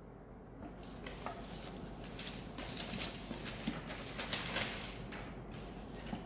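Handwriting: a run of faint, short scratchy strokes of a pen or marker as a line of algebra is written out.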